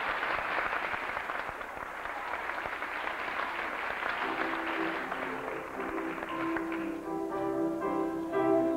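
Audience applauding, the clapping fading as music with held notes begins about four seconds in and grows louder near the end.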